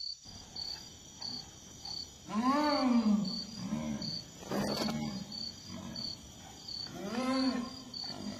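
A jaguar growling in long drawn-out calls that rise and fall, the loudest about two and a half seconds in and again about seven seconds in, with a shorter one near four seconds. A sharp knock comes about halfway through, and high insect chirps repeat steadily underneath, about one and a half a second.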